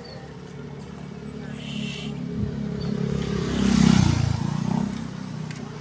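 A motor vehicle's engine passing by, growing louder to its peak about four seconds in and then easing off.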